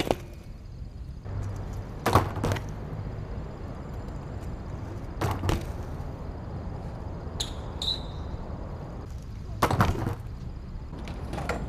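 BMX bike tyres rolling over rough concrete, with sharp knocks from the bike: a pair about two seconds in, another pair around five seconds, and a cluster near ten seconds.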